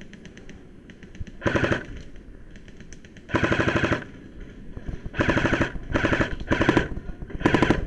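Airsoft guns firing full-auto bursts: six loud, short strings of rapid clicks, with fainter bursts from farther away in between.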